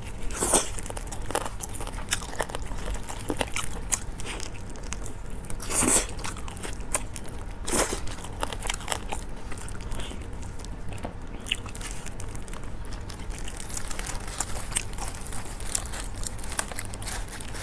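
Close-miked eating of a spicy chicken: biting and chewing, with irregular clicks and crackles as the meat is pulled apart by plastic-gloved hands over foil. A few bites stand out louder than the rest, over a steady low hum.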